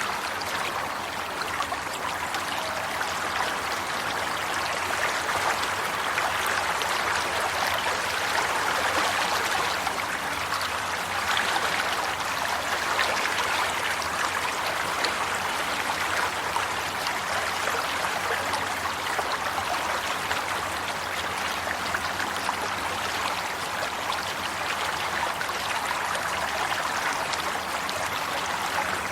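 Flowing stream water, a steady rush with fine trickling.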